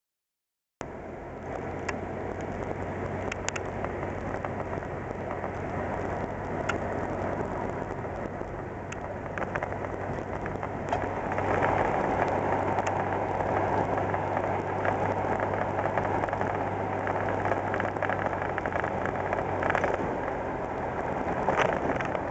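Ford Ranger pickup with a 2.9 L Cologne V6 heard from inside the cab while driving: a steady low engine drone under road and tyre noise, with scattered small clicks and rattles. It grows louder about eleven seconds in.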